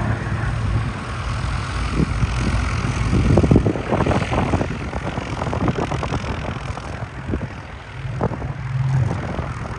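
Piper L-4 Grasshopper's small four-cylinder aero engine and propeller running at low taxiing power, a steady low hum. Irregular buffeting of wind on the microphone is loudest about three to four seconds in.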